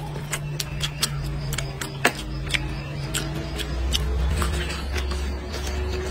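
Close-up chewing and lip-smacking of a man eating braised pork off the bone, with sharp wet mouth clicks a few times a second over a steady low hum.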